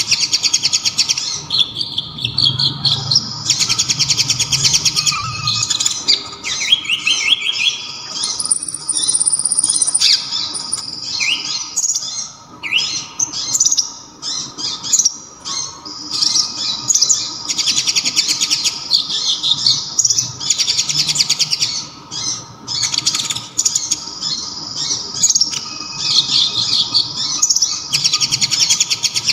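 Konin (kolibri ninja) sunbird singing a loud, high song with kapas tembak phrases worked in. It sings very rapid trills lasting a few seconds each, broken in the middle by shorter chirps and rising glides.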